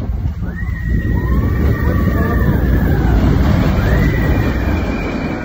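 Expedition Everest roller coaster train running along its track: a loud low rumble that builds and then eases. Over it comes a high, drawn-out squeal, once for over two seconds and again near the end.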